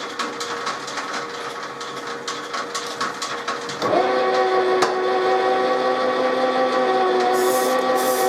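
Powered drilling machine running a 6.5 mm drill into metal to make the tapping hole for a 5/16 Whitworth thread, with a steady gear whine. About four seconds in, it gets louder and its pitch changes as the drill cuts.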